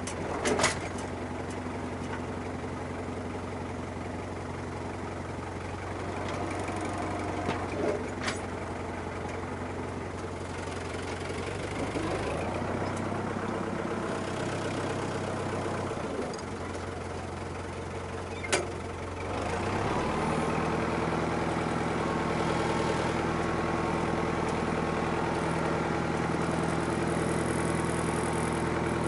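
Tractor diesel engine running steadily, with a few short clicks; about 20 seconds in it revs up, gets louder and holds at the higher speed.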